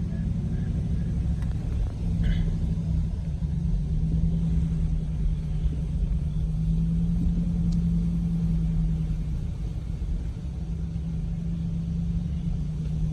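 A vehicle driving along a road: a steady low engine drone and hum over a continuous road rumble.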